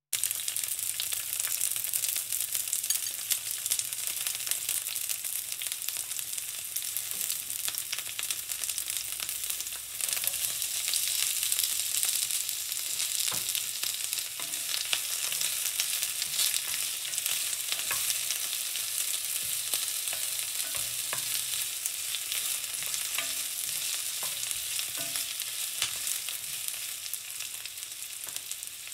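Chopped onion sizzling and crackling in hot olive oil in an enamelled pan. The sizzle starts suddenly as the onion goes in. It dips briefly about ten seconds in, when sliced carrot is added, and then carries on.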